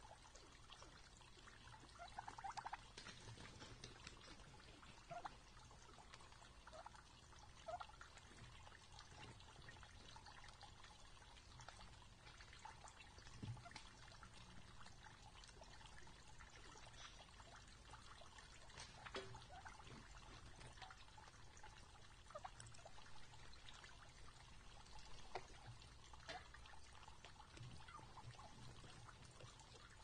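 Wild turkeys feeding, faint: scattered pecking, scratching and rustling in dry pine needles and leaves, with a few short soft calls.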